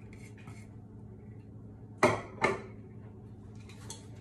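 A ceramic plate set down on the counter: two sharp clatters about half a second apart, with a couple of faint clinks before them.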